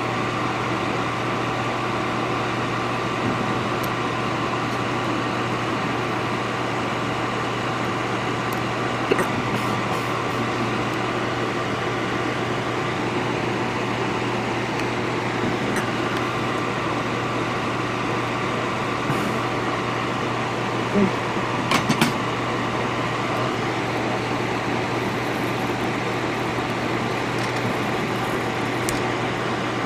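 Steady electric fan whir with a low hum, running at an even level. A few short metallic clicks and taps come about nine seconds in and again around twenty-one to twenty-two seconds in, as the helping hands' alligator clips are fitted to the iPhone logic board.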